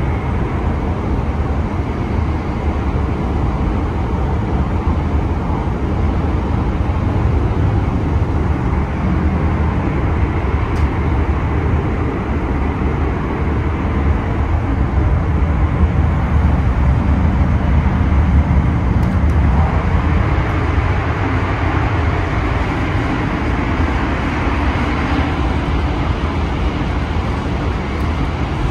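Steady low rumble of a Hayabusa Shinkansen bullet train running, heard from inside the car.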